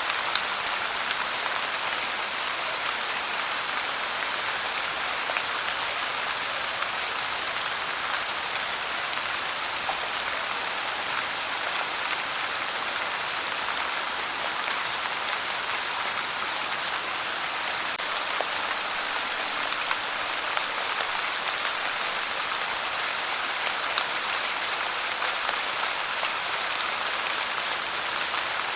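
Steady rain falling and pattering on a surface, an even hiss with scattered small drop ticks.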